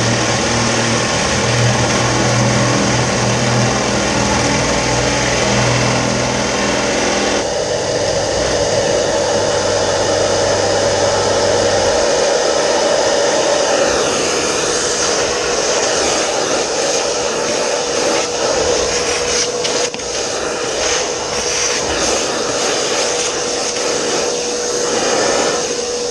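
Electric drill motor running steadily with a constant whine while boring a 35 mm hinge-cup hole with a flat-cutting bit. The low rumble under it drops away partway through, and the motor is switched off and spins down right at the end.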